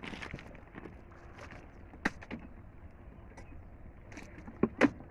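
Scattered sharp knocks and clicks over a faint low rumble, as a small boat is moved through floating water hyacinth. The loudest knocks come as a pair near the end.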